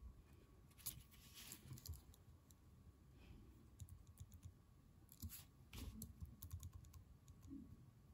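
Faint, scattered clicks of a computer mouse and keyboard, coming irregularly against near silence.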